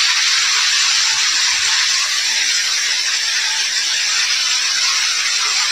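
Steady loud hiss with no pitch or rhythm, the background noise of the tunnel footage's audio.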